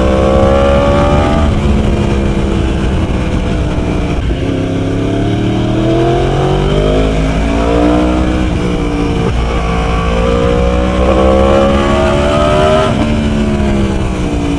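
Decatted Yamaha R1's inline-four engine pulling hard under acceleration, its pitch rising in three long sweeps and dropping at each gear change.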